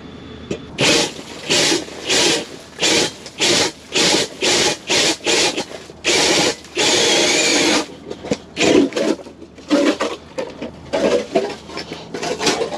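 Cordless drill driving an ice auger through the ice, run in short trigger bursts about every half-second, with one longer run of about a second around the middle and more irregular bursts toward the end.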